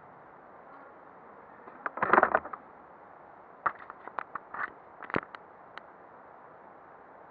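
Handling noises with the motorcycle's engine off. A short burst of rattling comes about two seconds in, then a string of sharp clicks over the next two seconds, with a faint hiss between them.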